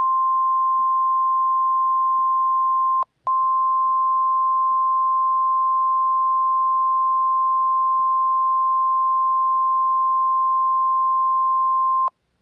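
NOAA Weather Radio warning alarm tone, a single steady 1050 Hz tone. It drops out for a moment about three seconds in, then resumes and stops shortly before the end. The tone signals that a warning message follows.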